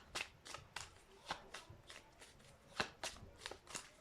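A deck of Lenormand cards being shuffled by hand: a faint run of irregular card flicks and clicks, a few each second.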